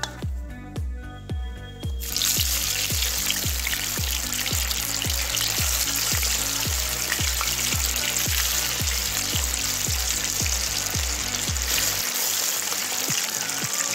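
Raw banana slices deep-frying in hot coconut oil: a loud, steady sizzle that starts suddenly about two seconds in. Background music with a steady beat plays throughout.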